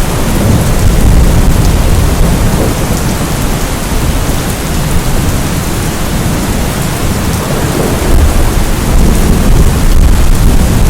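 Loud, steady rain with low rumbling thunder underneath, swelling about a second in and again near the end.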